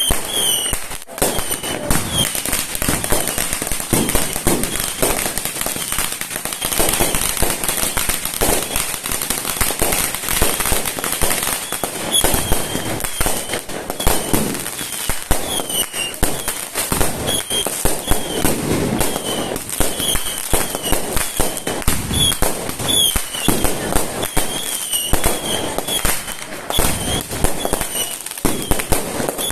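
Fireworks and firecrackers going off continuously: a dense, irregular run of bangs and crackles with many short high chirps mixed in.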